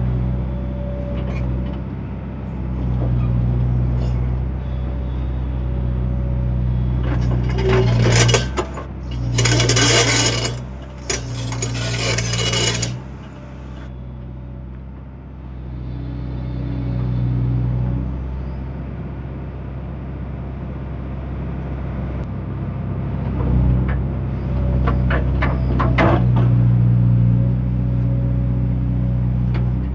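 JCB excavator's diesel engine running steadily under work. About eight seconds in come several seconds of loud scraping and clattering, and a few sharp clinks follow later on.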